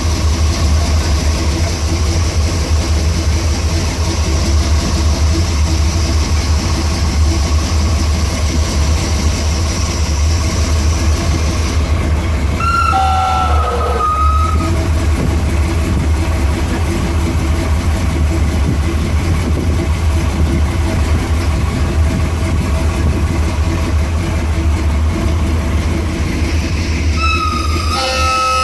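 Truck engine running with a steady low drone under a fainter, higher steady whine that cuts off about twelve seconds in. Two short wavering tones rise above it, about halfway and near the end.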